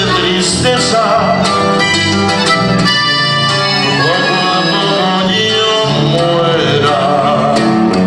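Live norteño music: an accordion carrying the melody over a strummed guitar and an electric bass line in a steady rhythm.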